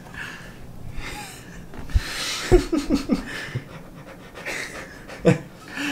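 Breathy, panting laughter, with a few short voiced laughs in the middle and again near the end, and a low thump about two seconds in.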